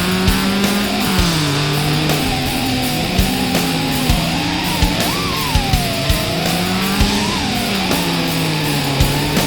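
Heavy rock music with electric guitar and a steady drum beat.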